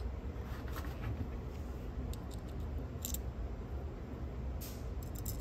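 A few faint clicks and scrapes of a screwdriver and small screws being handled against the metal chassis of a cassette tape transport, over a steady low hum.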